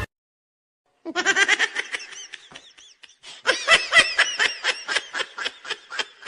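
Laughter sound effect: a string of rapid, high-pitched giggles starting about a second in, growing louder from about three and a half seconds in.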